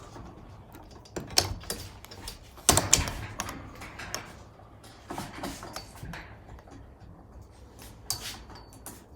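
Irregular clicks and clanks of hand work on a roller door motor and its drive chain, loudest in a cluster about three seconds in.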